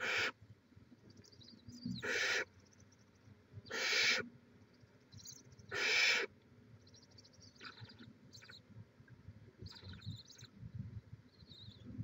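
Barn owlets in a nest box giving harsh, hissing screech calls, four of them about two seconds apart, the rasping begging call of young barn owls. Fainter high chittering and scratchy shuffling follow in the second half.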